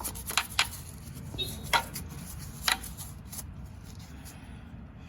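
A handful of sharp, irregular light clicks and taps, like small metal parts and tools being handled inside the lathe's gear case, over a faint low hum; the clicks die away in the last second or so.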